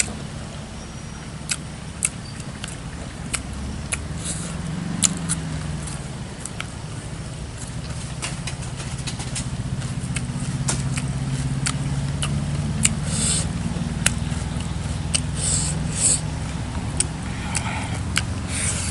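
Eating sounds: frequent sharp mouth clicks while chewing, with a few brief hissy slurps or sniffs near the end. They sit over a steady low engine-like hum that swells toward the middle.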